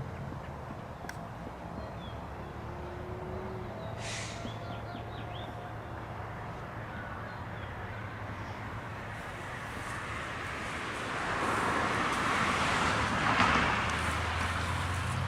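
Outdoor street background: a steady low traffic hum with a brief bird chirp about a third of the way in, then a vehicle passing by, its tyre and road noise building over the last third and loudest near the end.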